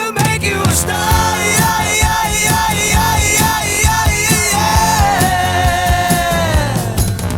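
1970s pop-rock song: a voice singing over a band with a steady beat, one long sung note held and sliding down in pitch near the end.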